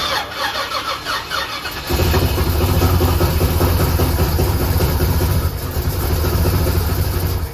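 Starter cranking the Weiand-supercharged small-block Chevy V8 for about two seconds, then the engine catches and runs loudly and steadily. The sound cuts off abruptly near the end.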